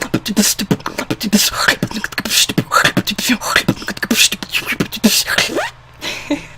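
Human beatboxing: a fast, dense run of vocal drum sounds, with low kick-like thumps between sharp snare and hi-hat hits. It stops about a second before the end, with one short burst after.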